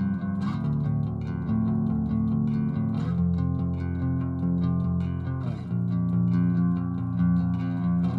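Background music with a steady beat and sustained chords that change a couple of times.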